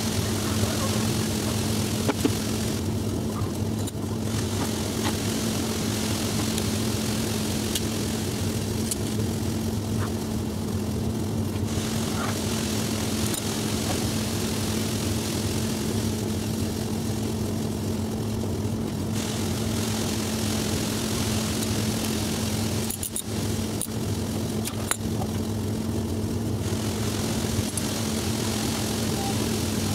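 A steady low machine hum, with a few light metallic clicks from engine parts being handled.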